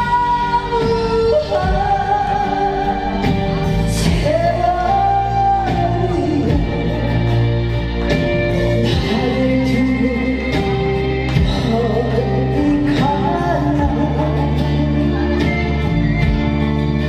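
A woman singing through a microphone over loud amplified backing music, holding long notes.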